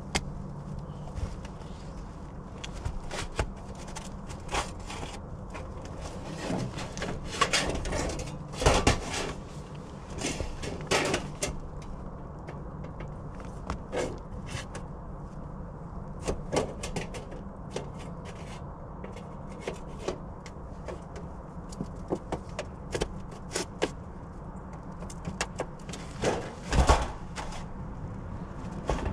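Scattered clicks, knocks and scrapes of hand work with tools and metal flashing at a chimney base, loudest around eight to eleven seconds in and again near the end, over a steady low rumble.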